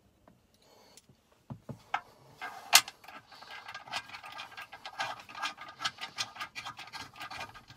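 A few light knocks, then a ratchet clicking rapidly and steadily from about two and a half seconds in, with one sharp click at the start of the run: a mounting bolt being run down into a console safe.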